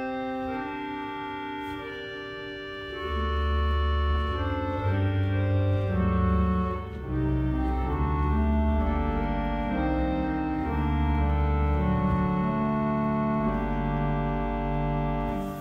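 Pipe organ playing chords and a melody on its Vox Humana, a rare reed stop meant to imitate the human voice; a deep bass line joins about three seconds in.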